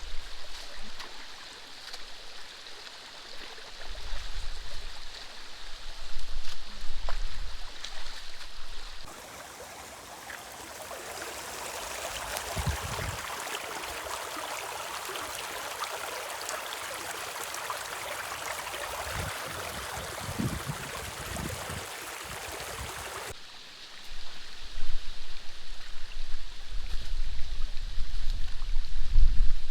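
Water rushing and gurgling through a gap in a beaver dam. For a stretch in the middle the water is a steady, brighter rush. Before and after that stretch, heavy low thumps and rumbles lie over the flowing water.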